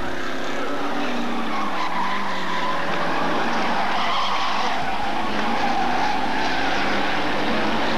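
A pack of Hotstox race cars racing round the oval: a steady wash of several engines together, their pitch rising and falling as the drivers lift and accelerate through the bends.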